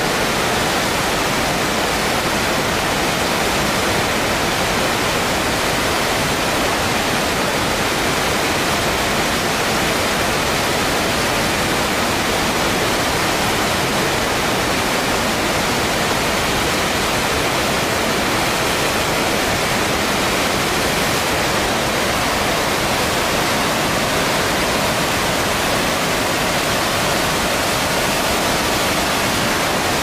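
Flood-swollen river in a typhoon: a steady, loud rush of churning muddy water through rapids, fed by water pouring out of the open gates of a river intake weir.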